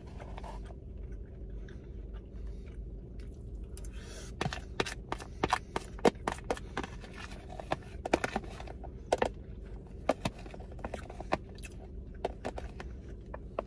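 A metal spoon scraping and clicking against a clear plastic food container, gathering the last of the rice, with sharp irregular clinks that come thick and fast from about four seconds in, over a steady low hum.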